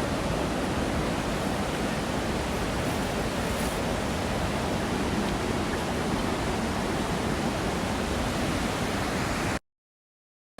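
Steady rushing of a creek waterfall, an even wash of water noise, cutting off abruptly to silence about a second before the end.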